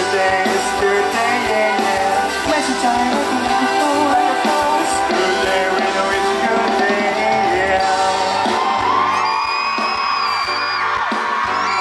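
Live pop-rock band playing, with a male singer singing into a microphone over electric guitar. From about eight seconds in, high crowd screams and cheers rise over the music.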